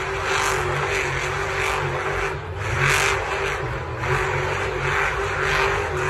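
Monster truck's big engine running at high revs while the truck spins doughnuts in the dirt, the sound swelling and easing over and over.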